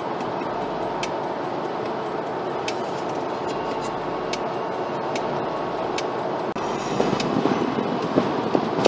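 Steady road noise of a car driving at highway speed, heard from inside the cabin, with faint irregular ticks. About six and a half seconds in, the sound cuts to a louder, rougher rumble.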